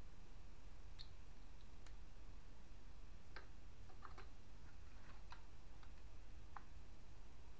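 Faint, scattered light clicks and taps of small plastic accessories being handled and lifted out of foam packing, over a low steady hum.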